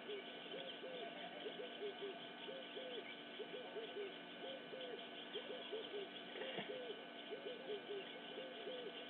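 A dense chorus of short rising-and-falling hooting calls, several a second and overlapping one another, over a steady background of fainter, higher chirping. A single soft knock about six and a half seconds in.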